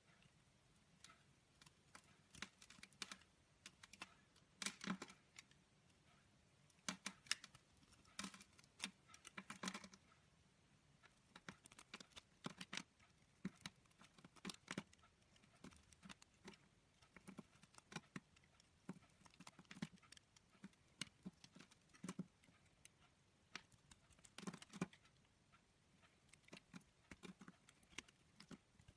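Bar of soap being shaved with a utility-knife blade: irregular crisp clicks and crackles in quick clusters as flakes break off the bar.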